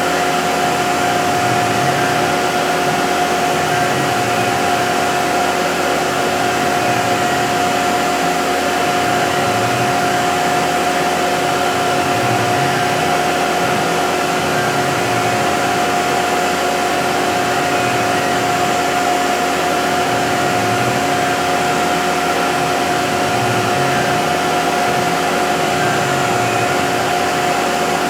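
Hobby CNC milling machine running a quarter-inch ball-nose end mill on a chamfering pass: a steady spindle whine over machine noise. Beneath it a lower sound rises and falls in a cycle of about two seconds as the tool steps around and down a cone shape.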